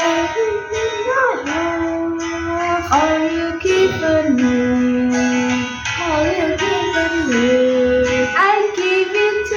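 A worship song: a voice singing long held notes that slide from pitch to pitch, over guitar accompaniment.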